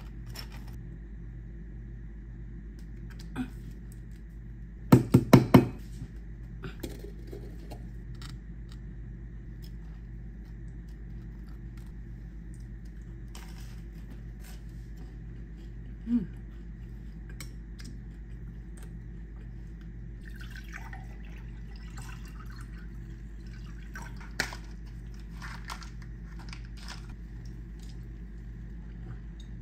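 Small kitchen sounds of making toast over a steady low hum. A quick run of four sharp knocks from a knife and jars, the loudest sound, comes about five seconds in, then a few softer single knocks, and later a drink is poured into a glass.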